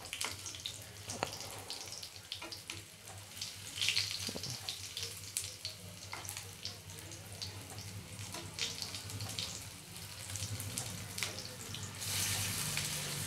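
Vegetable chops (boiled beetroot, carrot and potato cutlets) shallow-frying in oil over a medium gas flame, a steady sizzling hiss with crackles. There are a few clicks of a metal spatula against the pan, and the sizzle grows louder near the end.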